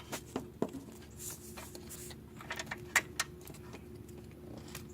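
Scattered light metallic clicks and taps, about eight spread irregularly, as an alternator mounting bolt and tools are handled and fitted, over a steady low hum.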